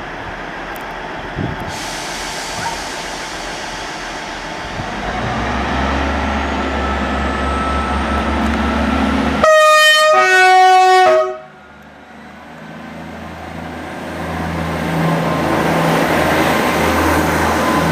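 A heavy diesel locomotive approaches with its engine rumble building. About two-thirds of the way through it sounds a loud two-tone horn, a higher note then a lower one, lasting under two seconds. The engine and passing-train noise then build again.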